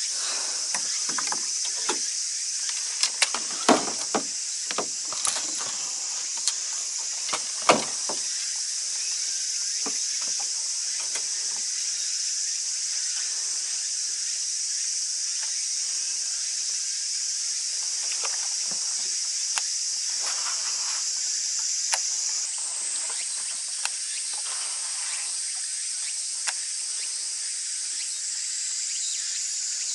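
A steady high-pitched chorus of summer insects, shifting slightly higher about 22 seconds in. Scattered sharp clicks and knocks sound during the first eight seconds.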